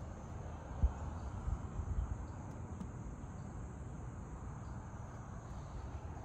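Outdoor ambience: a steady high insect drone over low rumble, with a few soft thumps about one to two seconds in.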